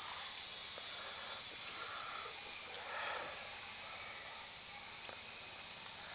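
Steady high-pitched chorus of Amazon rainforest insects, an unbroken buzzing drone.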